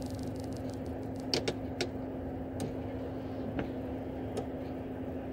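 Steady low hum of a Volvo truck running in slow traffic, heard from inside the cab, with a few scattered sharp ticks over the middle of the stretch.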